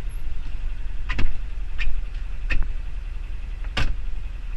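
Side-by-side utility vehicle's engine idling with a steady low rumble, and four sharp clicks and knocks as the cab door is handled, the loudest near the end.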